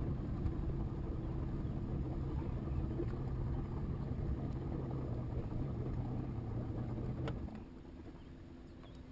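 Bass boat outboard motor running steadily at low speed with a constant low hum, then dropping away suddenly about seven and a half seconds in.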